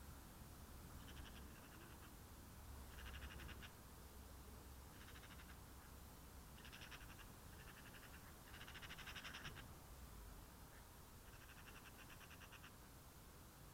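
Faint, repeated short trills from a small animal, each a rapid run of pulses lasting under a second, recurring every second or few seconds against near silence.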